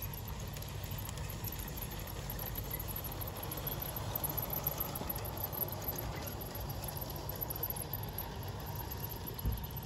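LGB G-scale garden-railway train running past on outdoor track: a light patter of wheels on the rails and a motor whir, loudest about four to five seconds in, over a low wind rumble.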